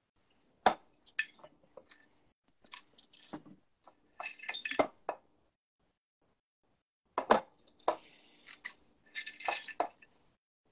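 Metal measuring spoon clinking and scraping against kitchen dishes while sugar is scooped: a series of sharp clinks, with two short rattling spells, one about four seconds in and one near the end.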